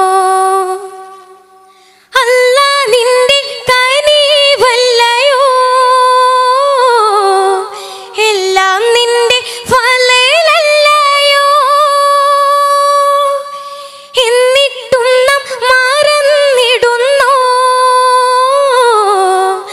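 Solo high-pitched voice singing a Malayalam Bakthiganam devotional song, with long held notes and ornamented runs between phrases. The voice drops away briefly about a second in, then comes back.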